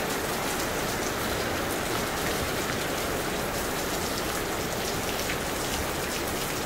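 A steady downpour of rain, an even hiss of falling drops.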